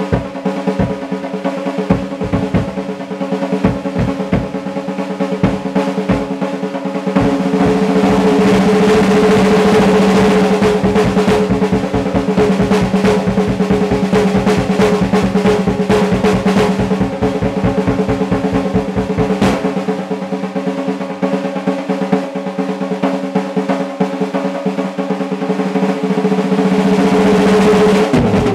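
Drum kit solo played with sticks: scattered snare and bass drum hits, then from about seven seconds in a fast continuous roll with the bass drum beating underneath. The bass drum drops out about twenty seconds in while the roll on the drums carries on.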